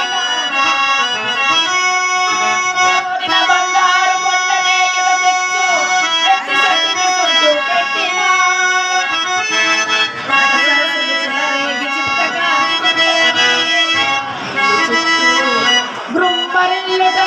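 Harmonium playing a melody of held reedy notes that change pitch every second or so.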